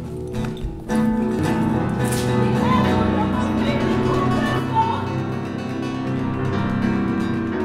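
Live acoustic guitar playing with band accompaniment; about a second in the music swells fuller and louder, with held notes and a wavering melody line over the guitar.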